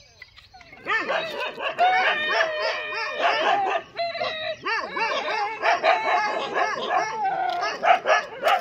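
A pack of dogs barking and yelping, starting about a second in, then continuous and rapid, with several voices overlapping.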